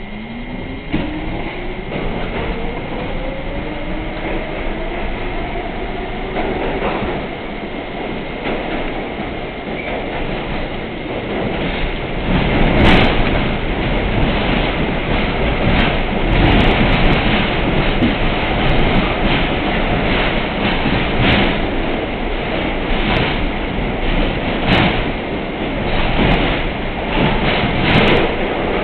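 R32 subway car getting under way in a tunnel: its traction motors whine, rising in pitch over the first six seconds or so, then the car runs on with a steady rumble and irregular sharp clacks of the wheels over rail joints.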